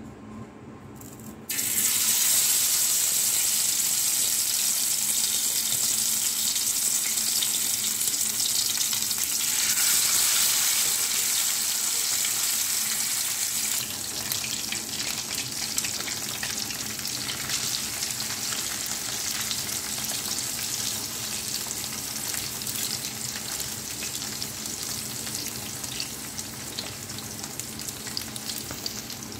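Whole threadfin bream (bisugo) frying in hot oil in a pan. A loud sizzle starts suddenly about a second and a half in as a fish goes into the oil, then carries on steadily with scattered pops. It is somewhat quieter after about fourteen seconds.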